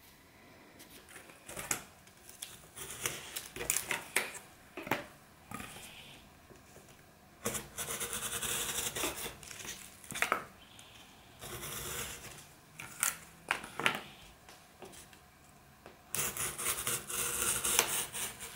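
Snap-off utility knife cutting cardboard on a cutting mat. There are several scraping strokes, the longest about a couple of seconds, with sharp clicks and taps in between.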